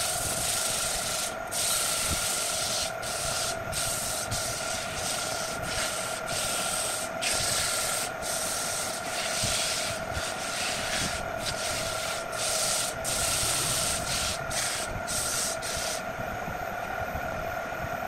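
Sandpaper held by hand against a turned wooden piece spinning on a wood lathe: a loud, even hiss broken by short gaps as the paper lifts off, over the lathe motor's steady whine. The sanding stops near the end, leaving the lathe running on its own.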